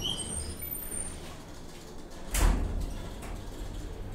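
Low steady rumble inside a Schindler 2400 hydraulic elevator car with its doors shut. A single loud thump comes about two and a half seconds in, and a brief high tone sounds at the very start.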